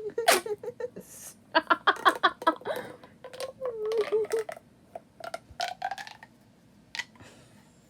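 Plastic pop tube fidget toy being stretched and squashed, its ribbed sections giving short pitched zips and pops in several quick bursts.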